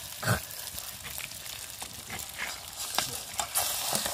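Frog meat and beaten egg frying in a steel pan over a wood fire: a steady sizzle with scattered clicks and knocks, and a ladle starting to stir the pan near the end.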